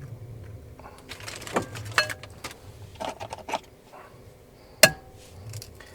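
Eggs being cracked against the rim of a bowl: a series of light taps and clicks, then one sharp, ringing clink near the end.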